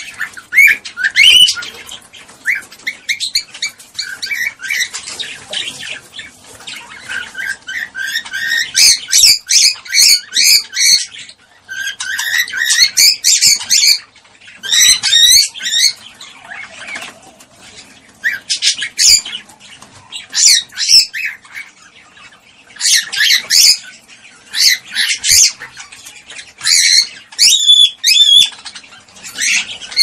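Cockatiel mating calls: fast warbling chirps and whistles in bursts of one to two seconds, with short pauses between.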